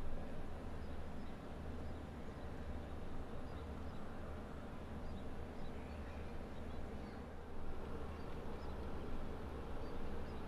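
Steady low rumble of outdoor background noise, with faint short chirps scattered through it.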